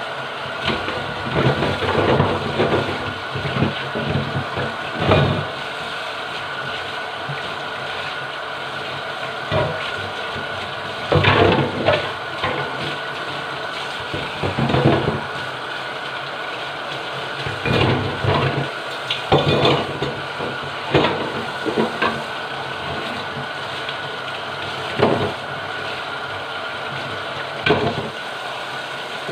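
Kitchen faucet running steadily into a stainless steel sink, with a steady high tone under the water, while a greasy exhaust fan plate is scrubbed and handled under it: irregular knocks and scrapes against the sink.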